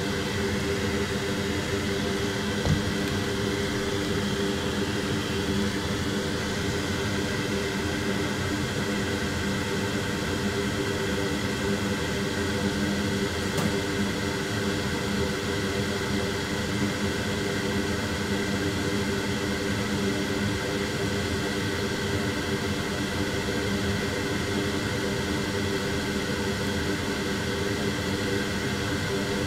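Steady whir of a fan or blower on a microsoldering bench, an even rushing noise with a constant hum.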